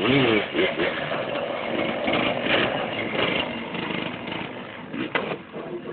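Quad bike (ATV) engine running and revving as the rider holds a wheelie, rising and falling in pitch near the start, over a rough hiss.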